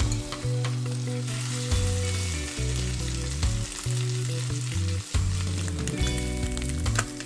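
A whitebait-and-egg fritter mix sizzling as it hits hot butter in a non-stick frying pan, with a plastic spatula scraping and tapping at it in short clicks. Background music with a low bass line plays underneath.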